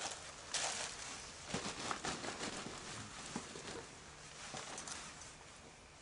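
Rustling and handling of outdoor gear and clothing, with a few light knocks, coming in short uneven bursts.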